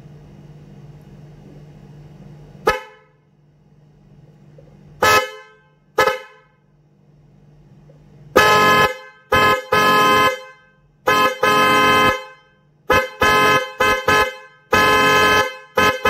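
Hella Golden Twin Tone trumpet horn pair (410 Hz and 510 Hz) sounding its two-note chord, switched on and off by touching a wire to the 12 V battery terminal. Three brief toots in the first six seconds, then about eleven loud blasts of under a second each in quick succession.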